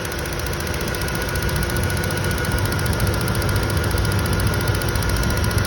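1997 Ford F-150's 4.6 L V8 idling steadily with a number 5 cylinder misfire (code P0305). The misfire comes from spark arcing around a wet, carbon-tracked plug boot, soaked by antifreeze leaking from the thermostat housing.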